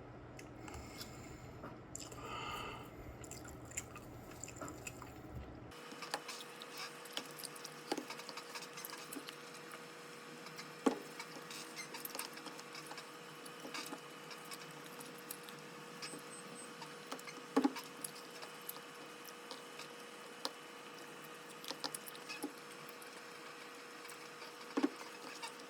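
Faint chewing and mouth sounds of a person eating, with scattered small clicks.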